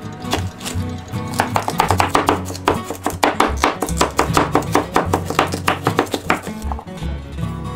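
Kitchen knife chopping a carrot into chunks on a plastic cutting board: a fast run of knocks, about five a second, from about a second and a half in until near the end. Background music plays underneath.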